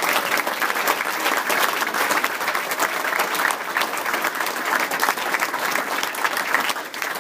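A large seated audience applauding steadily, a dense run of hand claps with some cheering mixed in.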